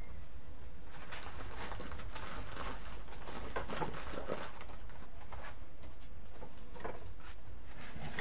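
A dove cooing, with rustling and knocks from a bag being loaded onto a motorbike.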